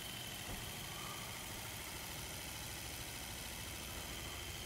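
Small battery-powered motor running steadily inside a homemade cardboard shake table, shaking the platform: an even hum with a thin steady high whine.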